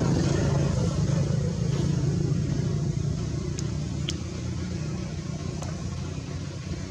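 An engine running steadily and slowly fading away, with a few faint clicks around the middle.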